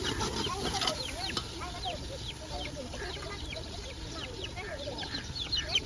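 Chickens clucking, with a steady run of short, high, falling chirps throughout.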